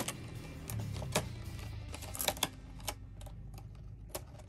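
A dozen or so irregular light clicks and taps, the kind made by handling small hard objects, over a low steady hum.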